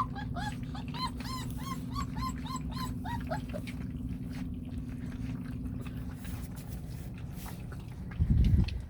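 A dog whining in a rapid run of short, high, rising-and-falling whines, about two or three a second, that trail off lower and stop after three or four seconds, over a steady low rumble. Near the end a loud low thump.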